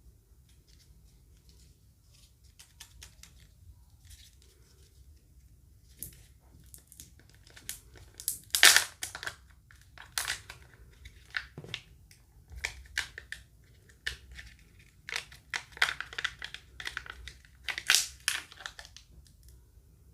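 Crinkly packaging being torn and crumpled by hand, in irregular bursts of crackling. It is faint at first, louder from about six seconds in, and loudest near the middle and again near the end.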